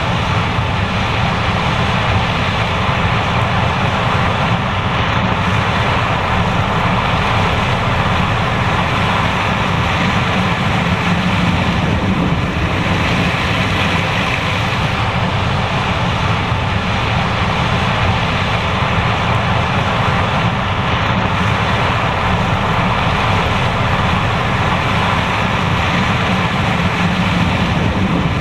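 John Deere S780 combine harvester running steadily under load while harvesting corn, a constant low machine rumble with a broad rushing noise over it.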